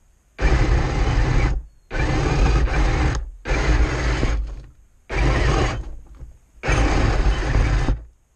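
Radio-controlled model tank's drive motors, gearboxes and tracks running in five short bursts of about a second each, stopping briefly between them as it is driven in spurts.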